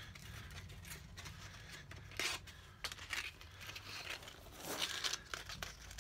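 Sandpaper rubbed by hand along a hard, dense snakewood knife handle: faint, irregular scratchy strokes, a few louder ones near the middle and toward the end, over a low steady hum.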